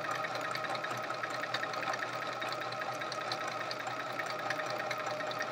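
Domestic sewing machine running steadily while stitching quilt patches: an even motor hum with a fast, regular needle ticking.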